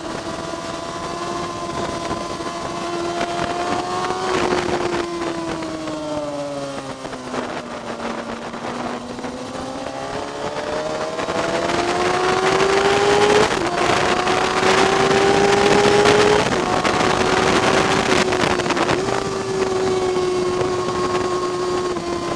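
Motorcycle engine heard onboard with wind rush during a track-day lap. The engine pitch drops for a few seconds as the bike slows for a corner, then rises again under acceleration with a gear change or two before holding steady.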